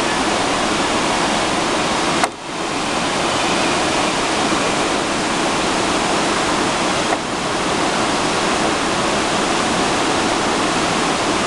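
Whitewater creek rushing steadily, a continuous even roar, with one sharp click a couple of seconds in and a fainter one near the middle.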